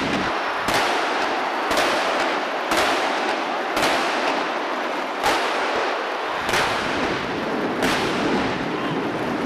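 Aerial firework shells bursting in a steady series, about seven sharp bangs roughly a second apart, with a continuous noisy haze between them.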